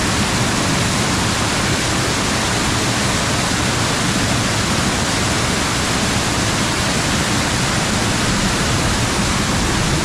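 Waterfall in full monsoon flow: a loud, steady rush of falling water with no let-up.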